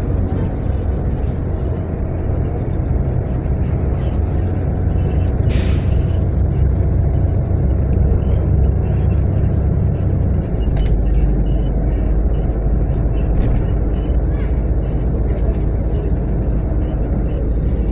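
Natural-gas city bus engine and road noise heard from inside the moving bus, a steady low rumble that drops to a deeper note about ten seconds in. A brief hiss about five and a half seconds in.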